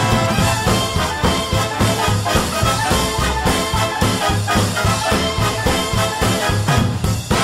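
Background music with brass instruments and a steady beat.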